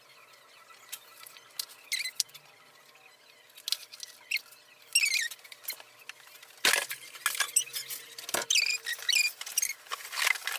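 Felt-tip marker squeaking and scratching across paper in quick back-and-forth colouring strokes, sparse at first and thicker and louder from about halfway in.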